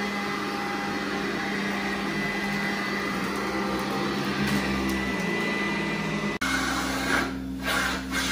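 Carpet-cleaning vacuum running steadily with a thin high whine over a low hum. About six seconds in it cuts abruptly to a different steady machine drone.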